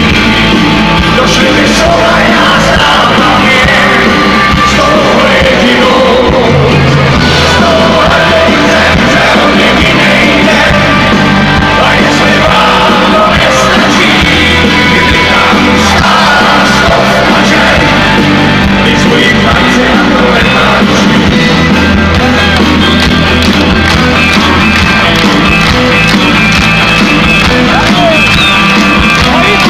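Live rock band playing at full volume through a large arena PA, with guitars, drums and a singing voice, heard from within the audience. The sound is loud and heavily compressed throughout.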